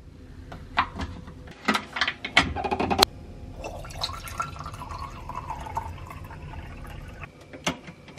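Plastic clicks and knocks of a Keurig single-serve coffee maker being opened and loaded with a pod. Then water is poured from a paper cup into its reservoir for a few seconds, and the lid shuts with a couple of sharp clicks near the end.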